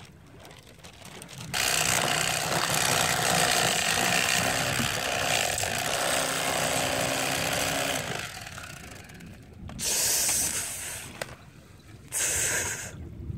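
Electric fillet knife running as it cuts through a fish: one long run of about six seconds, then two short bursts near the end.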